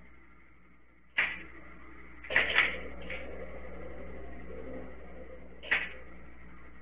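Dry-fire clicks of an RIA STK100 striker-fired pistol: a sharp click about a second in, a quick cluster of clicks a second later as the slide is worked to reset the trigger, and another single click near the end, over a steady low hum.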